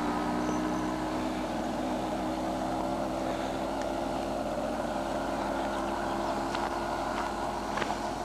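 A small motor or engine running steadily, giving an even drone with several fixed pitches. A few faint clicks come near the end.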